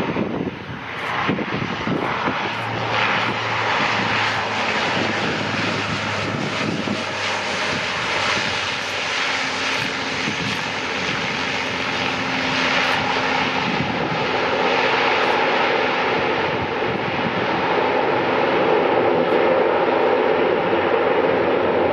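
Lockheed CC-130J Hercules's four Rolls-Royce AE 2100 turboprops and six-blade propellers running loud as the aircraft touches down and rolls out along the runway. The steady propeller drone swells gradually louder over the last several seconds.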